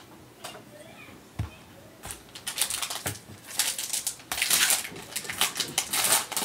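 Foil wrapper of a Panini Contenders football card pack being torn open and crinkled by hand: a run of sharp crackling rustles from about two seconds in, loudest past the middle and again near the end. Before that there is a soft knock.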